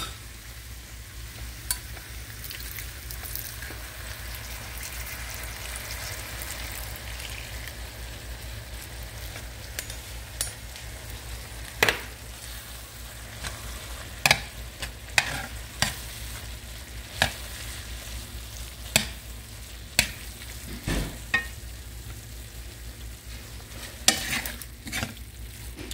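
Ground beef with gravy mix and canned-vegetable liquid sizzling in a cast-iron skillet, a steady frying hiss. From about halfway through, a metal spoon stirring the mixture knocks and scrapes against the pan in scattered clicks.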